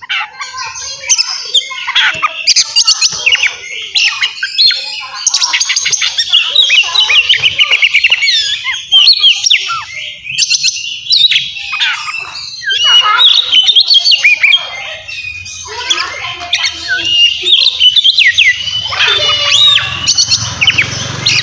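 Oriental magpie-robin (kacer) singing loudly and without let-up: a rapid stream of varied sweeping whistles, chirps and harsh trills, dropping briefly about ten seconds in.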